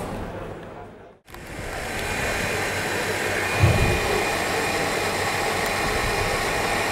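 Stand mixer motor starting up about a second in and then running steadily as it whisks whole eggs and yolks for a sponge cake batter, with a brief low bump midway.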